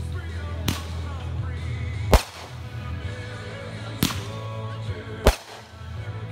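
Consumer aerial fireworks bursting in the air, four sharp bangs roughly one and a half to two seconds apart, with a fainter pop between the last two.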